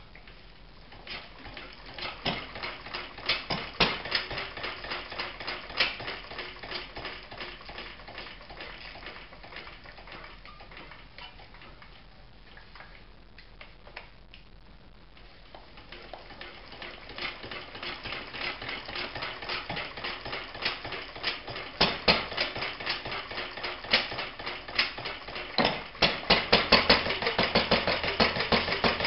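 1949 Lister D 1.5 hp single-cylinder stationary engine being hand-cranked: a rapid, regular clatter builds up, then dies away near the middle. On a second go the clatter builds again and turns suddenly louder about three seconds before the end, as the engine catches and runs with a fast knocking beat.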